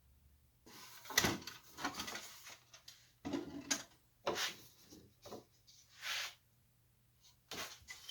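Old wooden drawer being handled and shifted about on a workbench: a series of separate wooden knocks and short sliding scrapes with quiet gaps between them.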